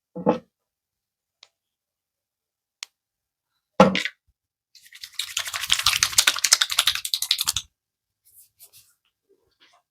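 Hands massaging a man's head: two short thuds about four seconds apart, then about three seconds of rapid crackling clicks from the hair being worked, known as hair cracking.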